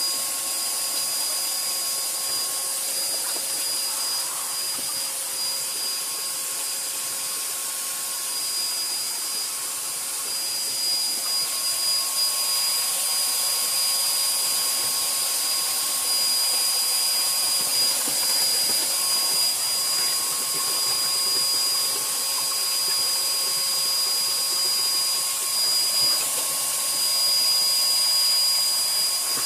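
Electric pesticide spraying machine running steadily: a constant motor whine over a strong high-pitched hiss, slightly louder about halfway through and again near the end.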